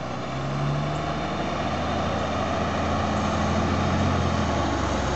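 Fire engine's diesel engine running as the truck drives toward the listener, growing steadily louder.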